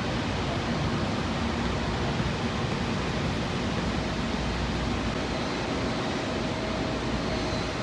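Steady rushing noise with no distinct events; a faint steady tone joins it about five seconds in.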